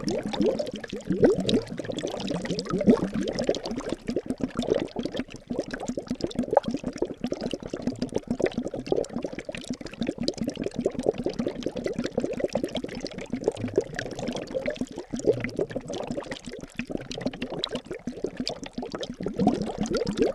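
Liquid bubbling and gurgling continuously in a dense run of quick little glugs, with a faint steady low hum underneath.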